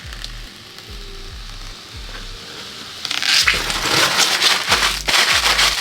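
Background hip-hop beat with a deep, sliding bass. About three seconds in, a loud crackling rustle joins it and becomes the loudest sound.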